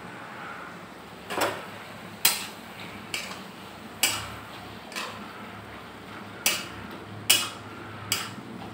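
Metal spatula knocking and scraping against a steel kadai while stirring frying tomatoes and onions, about eight sharp strokes roughly once a second.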